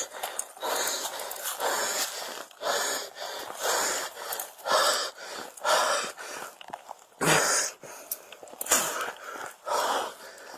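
Heavy, rapid breathing close to the microphone, about one breath a second, from a man winded after a foot chase and a struggle.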